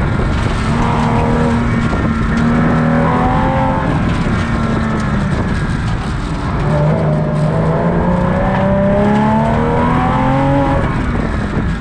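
2000 Porsche Boxster S's 3.2-litre flat-six accelerating hard, its pitch climbing in the first few seconds, dropping around the middle, climbing again for several seconds, then falling near the end as the driver lifts off.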